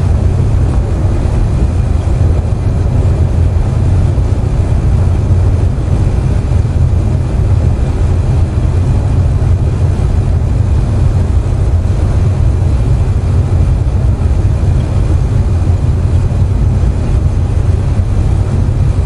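Air conditioner running with a steady low hum, mixed with the even hiss of steady rain.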